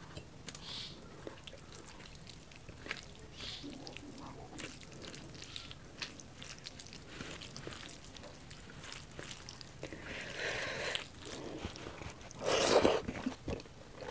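Fingers mixing steamed rice with curry gravy on a steel plate: soft wet squishing with many small clicks and ticks, and one louder wet squelch near the end.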